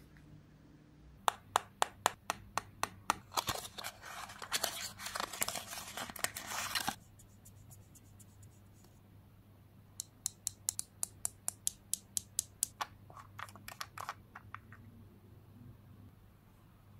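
A small cosmetic eyeshadow jar and its cardboard box being handled and opened. There is a run of sharp clicks that turns into dense crackling of packaging for about six seconds, then, after a pause, a second run of regular clicks, about four a second, as the jar is worked open.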